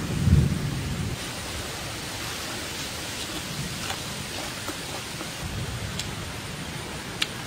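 Steady rushing water of a rocky stream, with a low thump just after the start and a couple of sharp clicks near the end.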